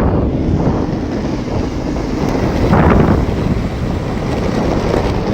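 Wind buffeting the microphone of a rider on a moving electric longboard, over the board's rolling noise, swelling louder about three seconds in.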